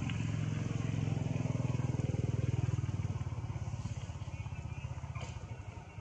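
A motor engine running with a low, even throb, loudest about two to three seconds in and fading toward the end.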